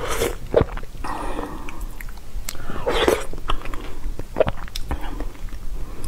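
Close-miked mouth sounds of eating soft watermelon-and-milk jelly: wet chewing and slurping with sharp lip smacks, the loudest about three seconds in.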